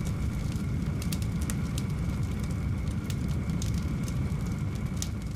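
Burning-fire sound effect: a steady low rumble of flames with scattered sharp crackles.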